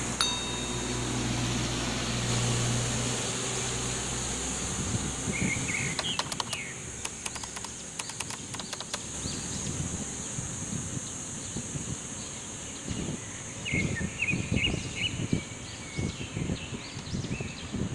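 Street ambience under trees. Small birds chirp in short bursts over a steady high hiss. A vehicle engine hums through the first four seconds or so, and irregular low thumps come in near the end.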